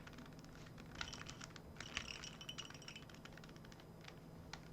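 Faint clicking and rattling of a Rubik's Cube's plastic layers being turned, with a flurry of quick clicks about a second in that lasts roughly two seconds and a single click near the end.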